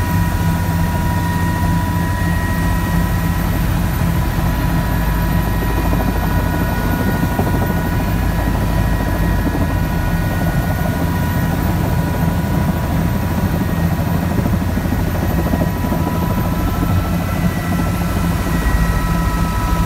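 Helicopter's turbine engine and rotor heard from inside the cabin: a steady, loud drone with a high turbine whine over it, as the helicopter sets down with the rotor still turning. The whine shifts slightly in pitch near the end.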